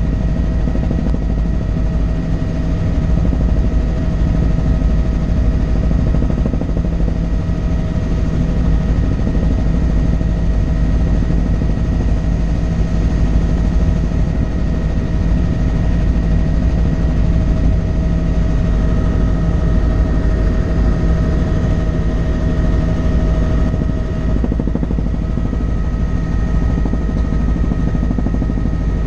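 Helicopter in level flight heard from inside the cabin: a steady, loud drone of rotor and engine with a constant high whine over a low rumble.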